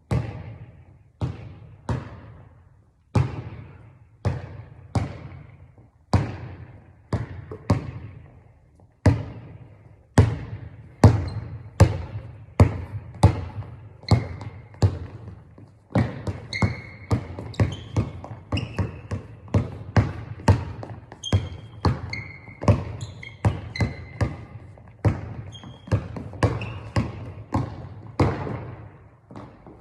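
A basketball being dribbled on a court in a steady run of bounces. The bounces come about one a second at first, about two a second by the middle, and faster again in the second half, when short sneaker squeaks on the floor join in.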